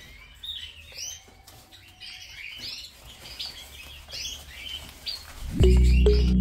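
Caged canaries chirping and calling, many short notes overlapping. About five and a half seconds in, loud background music cuts in.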